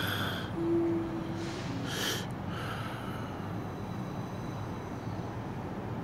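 Two short breathy snorts about two seconds apart, with a brief steady tone lasting about a second between them, over a steady low background hum.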